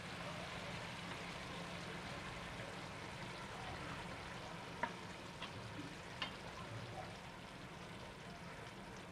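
Faint, steady simmering of hilsa curry in a frying pan, with three or four light clicks of a spoon against the pan and a ceramic plate about five to six seconds in as fish pieces are lifted out.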